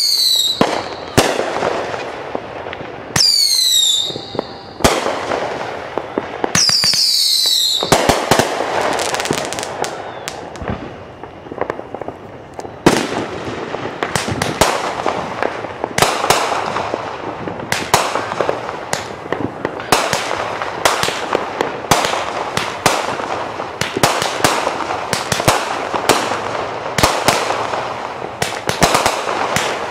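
Fireworks going off: three whistles falling in pitch in the first eight seconds, then, from about 13 seconds in, a fast run of sharp bangs, several a second.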